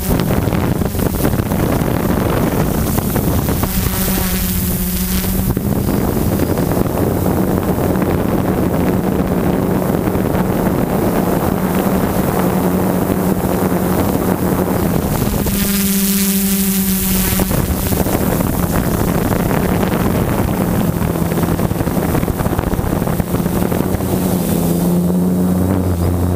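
DJI F450 quadcopter's brushless motors and propellers humming steadily as heard from the onboard camera, with heavy wind rush over the microphone. The hum changes pitch near the end as the motors change speed.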